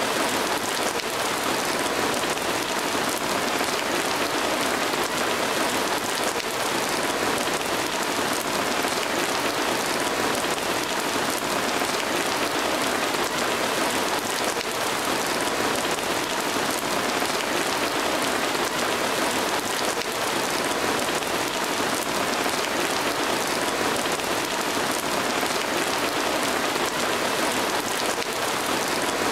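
Steady, unbroken hiss of dense noise at an even level, with no changes or pauses.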